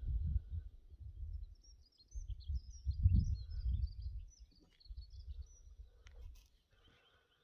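Wind buffeting the microphone in gusts, with a small bird singing faintly in quick high chirps over the first few seconds. There is a short click about six seconds in.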